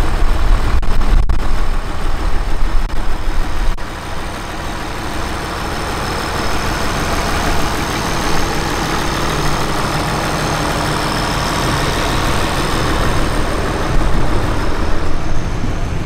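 International Harvester Farmall 1066 Turbo's turbocharged diesel engine running at low speed as the tractor drives past, loudest and rumbling in the first few seconds, then settling to a steadier, quieter run.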